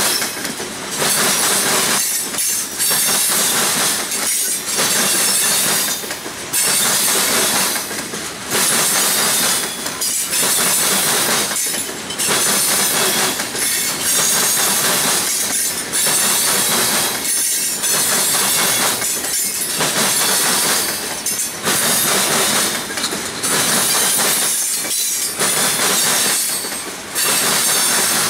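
Loaded freight hopper cars rolling over a railroad diamond crossing, their wheels banging across the crossing rails in a loud, regular clatter that swells and dips about every two seconds as each car goes by.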